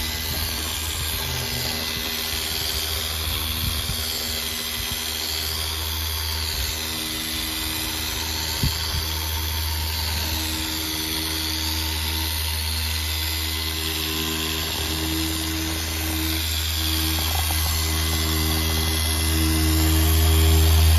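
Mini cordless polisher running with a small foam pad on a gloss-black wing mirror cover: a steady motor whine and hum whose pitch shifts as the pad is worked over the curved surface, getting louder near the end.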